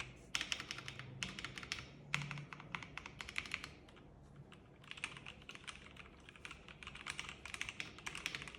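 Typing on an M88 mechanical keyboard with red linear switches and PBT keycaps: quick runs of soft key clacks, with a short pause about four seconds in.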